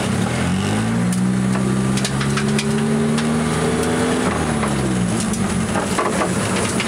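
Turbocharged SR20DET four-cylinder engine in an AE86 Trueno, heard from inside the cabin, rising in revs about half a second in and climbing slowly for a few seconds, then dropping back off near the five-second mark.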